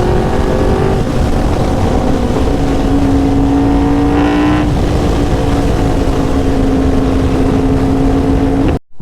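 Yamaha R1's crossplane inline-four running at cruising speed under heavy wind rush. The engine note drops about a second in, then climbs slowly and holds steady. The sound cuts off suddenly near the end.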